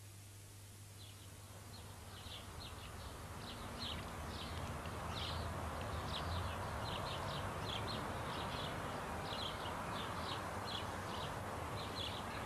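Birds chirping in short, irregular calls over a steady outdoor background noise, the whole fading in over the first few seconds.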